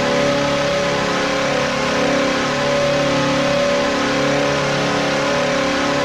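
Nashville Predators goal horn blowing one long, steady blast of several held tones together, over a constant wash of noise. The horn stops at the very end as the goal song's drums come in.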